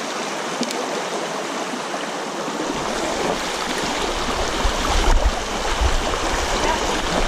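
Shallow creek water rushing and rippling over stones, a steady rush. A low rumble joins from about three seconds in.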